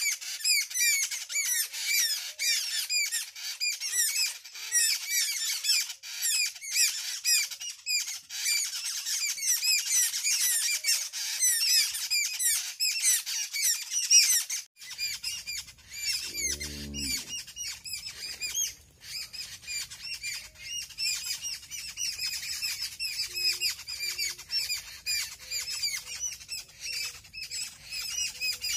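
A flock of small birds chirping and chattering in a dense, unbroken chorus of quick high chirps. A little past halfway it breaks off briefly and resumes over a low rumble, with a short low thud soon after.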